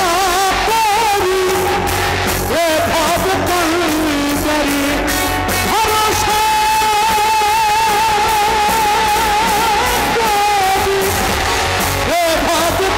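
Live Baul folk-rock: a male Baul singer sings a wavering, ornamented melody over a rock band with guitar. In the middle he holds one long note with a vibrato for about four seconds.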